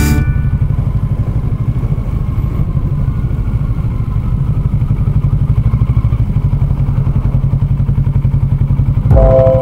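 Motorcycle engine running steadily with a low, even pulsing as the bike is ridden, heard from on board. Music comes back in near the end.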